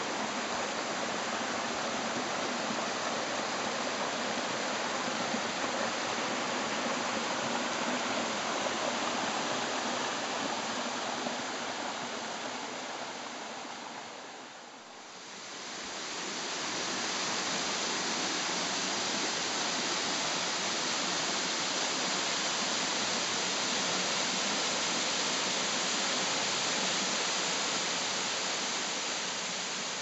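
Steady rush of water: a small creek cascading over rock ledges, then a waterfall pouring down a rock face. The rush dips briefly about halfway through and comes back just as steady.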